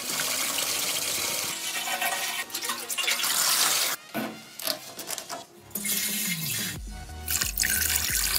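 Dirty rinse liquid pouring out of the filler neck of a rusty motorcycle fuel tank and splashing onto a metal wire grate. It is a steady pour for about four seconds, then shorter gushes, over background music.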